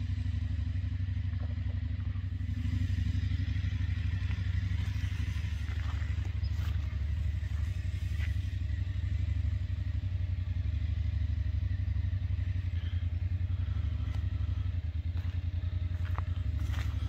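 An engine idling steadily with a fast, even low pulse, and a few faint clicks over it.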